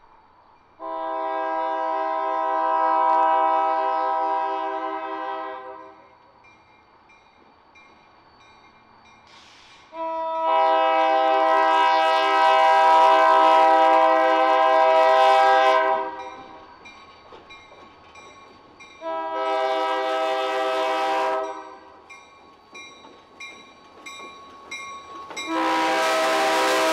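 Diesel locomotive's air horn sounding the grade-crossing signal: long, long, short, long. The final long blast comes as the locomotive passes close, with loud engine and rail noise under it.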